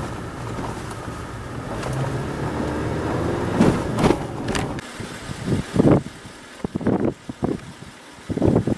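Road traffic driving past close by: car and bus engines and tyre noise in a steady roar, with a brief rising engine note about three seconds in. After about five seconds the traffic drops away and several short, loud bumps break in.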